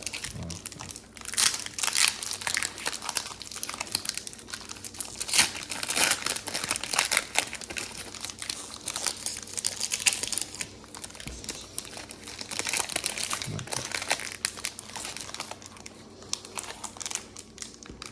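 Foil wrappers of Pokémon trading card booster packs being torn open and handled, an irregular crinkling and crackling with some tearing throughout, busiest in the first half.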